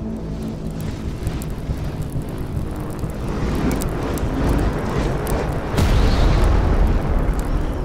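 Fiery explosion sound effect: a rumbling rush of noise with crackles that builds to its loudest about six seconds in.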